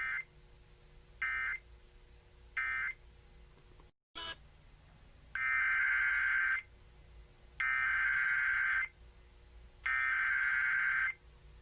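Emergency Alert System SAME data bursts. First come three short bursts about a second apart: the end-of-message code closing one alert. After a brief dropout come three longer bursts of about a second each: the SAME header announcing the next alert, a severe thunderstorm warning.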